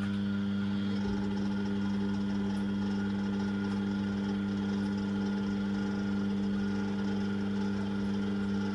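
Electric hydraulic pump motor of a scissor lift running with a steady hum as it raises the lift.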